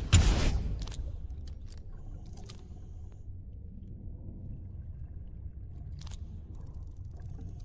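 Underwater jet revolver sound effect: one last loud shot right at the start that fades out over about a second, then a low steady rumble with a few faint clicks.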